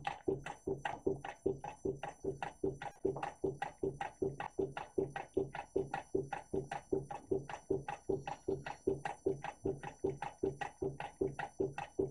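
Homemade tin-can Stirling engine, heated by a single candle, running steadily with an even knocking about three times a second as its displacer and crank turn over.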